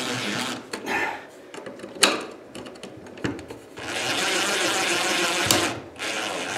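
Cordless drill/driver running in short bursts, driving the mounting screws of a plastic lampholder into a ceiling electrical box. The longest run, about a second and a half, comes near the end.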